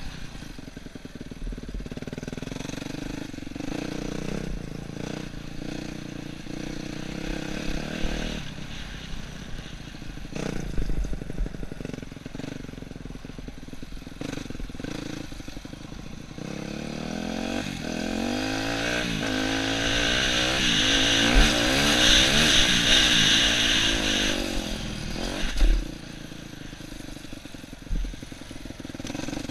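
Yamaha YZ250F four-stroke single-cylinder dirt bike engine running under way on a trail, its revs rising and falling with the throttle and climbing to the loudest stretch about two-thirds through. A couple of short sharp knocks near the end.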